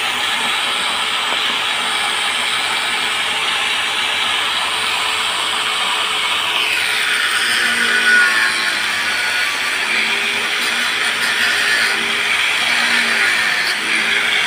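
Electric angle grinder with a cut-off disc grinding a small metal part, running steadily. About halfway through, its pitch falls as the disc bears down on the work.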